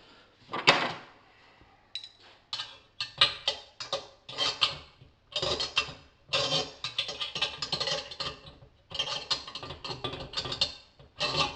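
Spanner working the nuts on the bolts of an exhaust blow kit's clamp, with short runs of metallic clicking and scraping and a sharp metal clank near the start.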